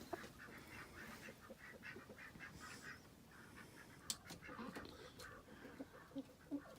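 Faint, soft, repeated calls from roosting hens settling for the night, with a few light clicks about four seconds in.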